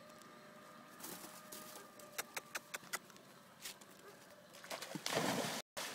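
Water splashing briefly, about five seconds in, as a labrador surfaces after diving into a pond, over faint bird calls, with a few sharp clicks about two to three seconds in.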